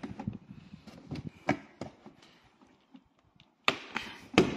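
Plastic retaining clips snapping loose as the rear bumper cover of a 2006–2012 Honda Civic hatchback is pulled away from the body by hand. A few light clicks come first, then three sharp snaps near the end, the last the loudest.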